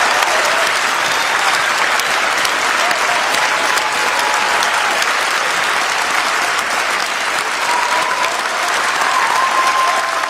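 A large assembly of delegates applauding steadily, greeting the adoption of the Paris climate agreement, with a few voices calling out over the clapping.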